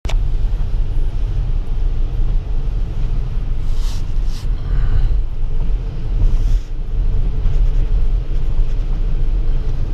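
Steady low road rumble inside a Tesla's cabin as it drives on a wet road in the rain, with no engine sound, and a few brief swishes partway through.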